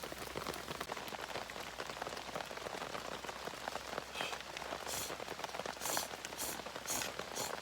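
Steady rain falling, a dense hiss of many small drop hits. Several short, brighter hissing sounds come on top of it in the second half.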